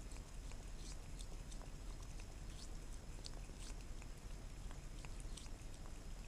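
Cat licking insect jelly from a small plastic cup: soft, wet lapping clicks at an uneven pace of about one or two a second.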